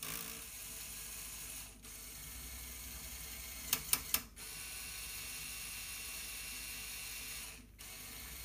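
LEGO Technic electric motor whirring through its gears as it tilts the tank's cannon, with a brief stop about two seconds in and again near the end. Three sharp clicks come in quick succession just before the middle.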